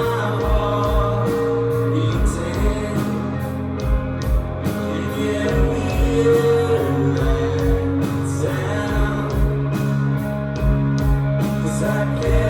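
Rock band playing live, with singing over sustained instruments and a steady bass-drum beat.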